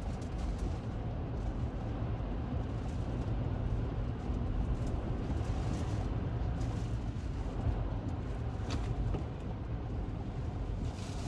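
Steady low rumble of tornado winds buffeting a vehicle, heard from inside the cab, with a couple of brief sharp taps as debris flies past.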